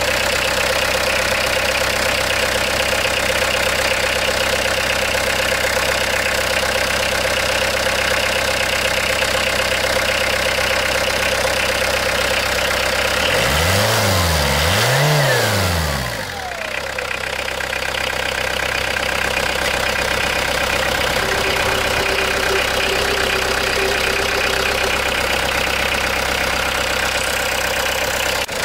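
Peugeot 405 turbo-diesel engine idling steadily. About halfway through it is revved twice in quick succession by hand at the throttle lever of the Roto-Diesel injection pump. It then drops back to idle with a falling whine.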